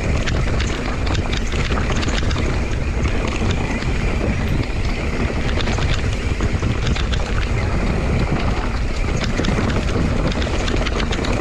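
Mountain bike rolling over a rocky dirt trail: tyres running over loose stones and the bike rattling with many quick clicks and knocks, under steady wind noise on the microphone.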